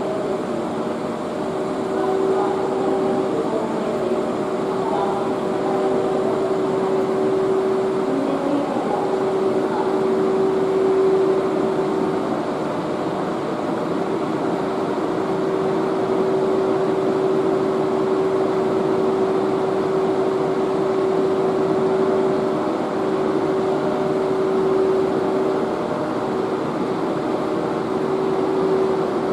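EF81 electric locomotive humming steadily at close range: a constant mid-pitched tone over an even mechanical whir, with no change in speed or pitch.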